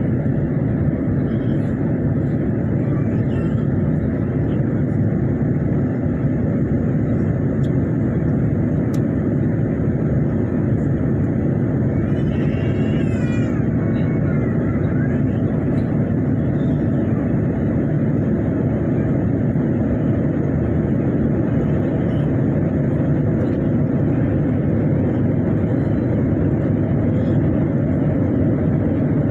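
Steady, loud rumble of jet engines and rushing air heard inside the cabin of a Boeing 787 Dreamliner during takeoff. A brief, faint wavering higher sound rises over it about twelve seconds in.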